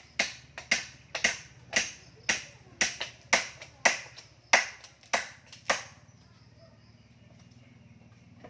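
Repeated sharp blows of a hand tool, about eleven in all at roughly two a second, each ringing briefly, stopping about six seconds in.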